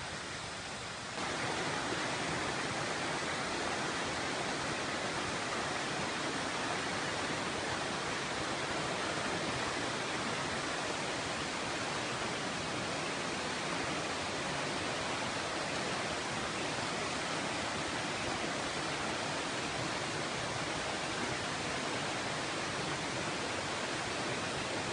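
Rushing water of a waterfall, a steady even noise that becomes louder about a second in.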